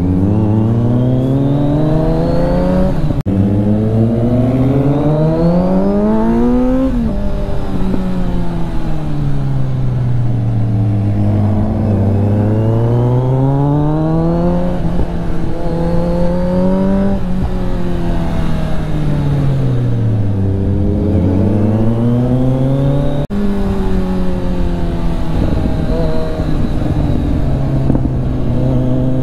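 Onboard sound of a Kawasaki Z900's inline-four engine under way. The revs climb and fall over and over, with sudden drops at gear changes and longer dips as the throttle is rolled off and opened again.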